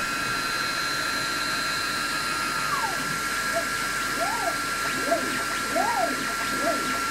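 A desktop CNC machine's stepper motors whine in short rising-then-falling glides, several times from about three seconds in, as the axes move the lit laser head to mark a cross. Under them run a steady fan-like hiss and a steady high whine.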